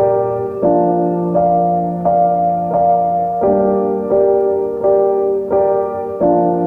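Background music: a soft piano or keyboard playing a slow, even pattern of notes over held bass notes.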